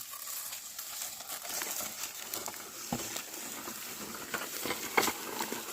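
Oxen ploughing a field: a steady soft rustle with scattered small crackles and knocks from soil, plough and hooves. A brief shouted call comes about five seconds in.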